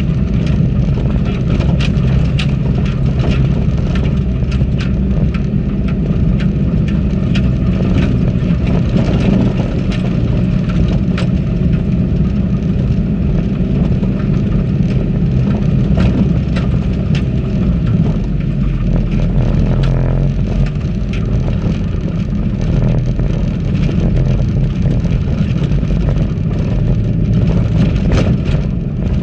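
4x4 engine running steadily as the vehicle drives off-road on a rough, stony gravel track, with frequent short knocks and clatter from the rough surface.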